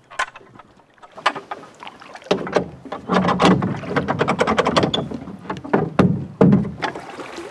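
Wooden oar knocking and clattering against a small rowboat's hull and its metal oarlock as it is handled and seated in the oarlock: a run of irregular sharp knocks, some with a hollow thud.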